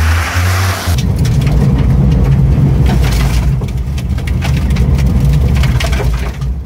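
Citroen C1 rally car being driven hard, its engine a steady low drone under a spatter of crunching and crackling that suits loose gravel under the tyres. A short hiss comes first, and the driving sound starts abruptly about a second in.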